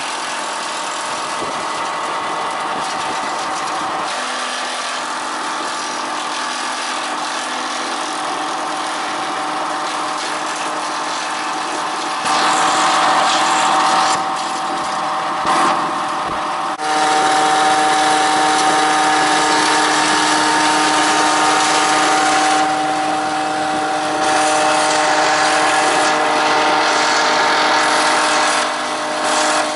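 Homemade disc-type branch chipper running with a steady machine hum. It grows louder in several stretches, from about 12 seconds in and for most of the second half, as branches are fed in and chipped.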